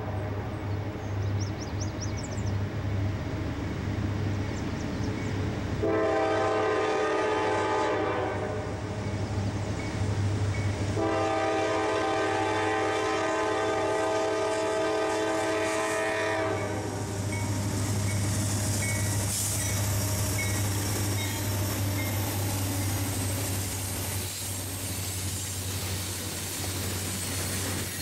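Diesel freight locomotives (a GE D9-44CW leading an EMD SD70M-2) sounding the air horn for a grade crossing: two long blasts, about six and eleven seconds in, over the steady low rumble of the diesel engines. In the second half the loaded hopper cars roll by with a high hissing wheel-on-rail noise.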